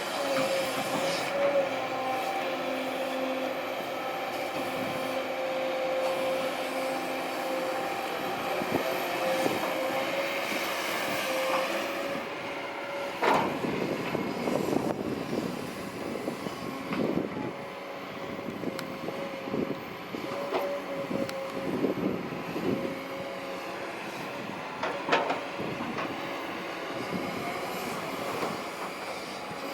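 Kobelco SK200-8 excavator running, with a steady whine from its engine and hydraulics. From about halfway on come repeated metallic clanks and squeals.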